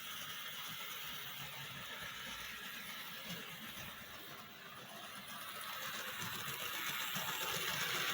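Rivarossi Bulletnose 4-6-4 Hudson model locomotive running on the layout track, a steady whirr of its motor and wheels that grows gradually louder over the second half as it comes closer.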